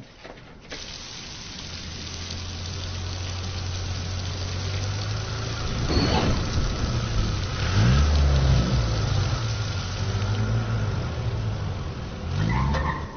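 Police SUV engine running as the vehicle drives in, its revs rising and falling a few times near the middle, over the steady hiss of heavy rain.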